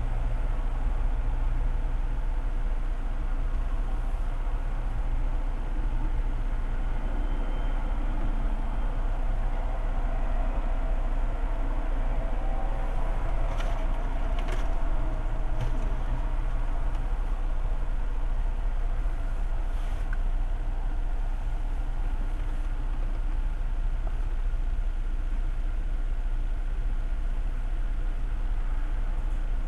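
Car engine idling, heard from inside the cabin as a steady low hum, with a few faint clicks about halfway through.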